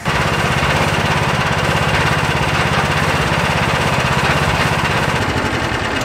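Small engine running steadily at constant speed, with a dense rough hiss over its even pulsing.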